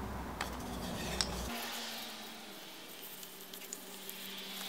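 Bare hands rubbing oil into a wooden baby rattle, a wet squishing and rubbing sound, with a couple of light clicks in the first second or so.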